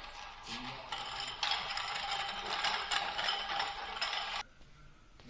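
A dense mechanical rattling noise that cuts off suddenly about four seconds in.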